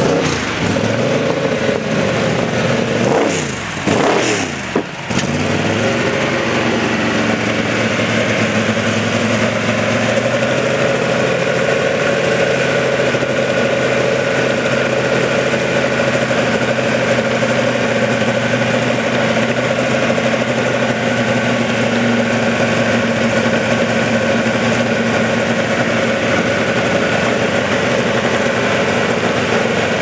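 Vauxhall Firenza 'Baby Bertha' race car's V8 engine blipped up and down a few times in the first several seconds, then idling steadily and loudly.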